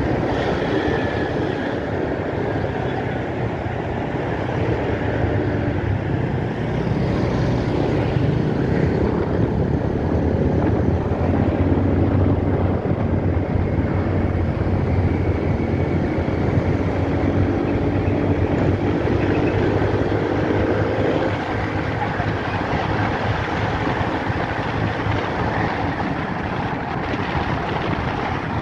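Motor scooter being ridden through traffic: its engine running steadily under road noise, with other vehicles around it.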